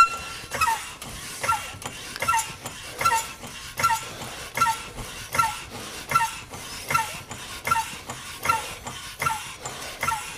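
ACDelco hydraulic floor jack being pumped to raise a car: a click and a short falling squeak with each handle stroke, a steady rhythm of about four strokes every three seconds.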